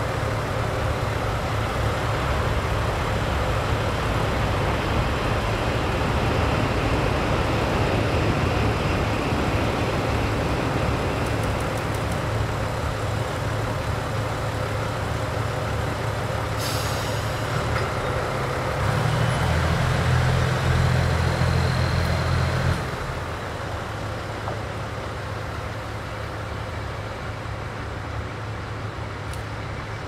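JR Central KiHa 85 series diesel railcars idling at a standstill, with a steady low drone from their Cummins diesel engines. A short, sharp hiss of air comes about halfway through. Then a louder low hum runs for about four seconds and cuts off suddenly, and the idling goes on a little quieter.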